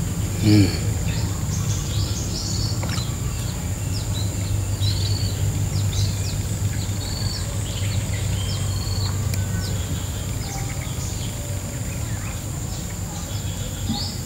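Outdoor ambience of small birds chirping in short, repeated high calls over a steady high-pitched insect drone and a low steady hum. A brief louder sound with a falling pitch comes about half a second in.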